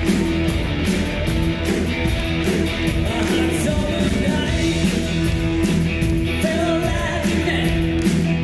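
Live rock band playing: electric guitars, bass and drums with steady cymbal hits, and singing over the top.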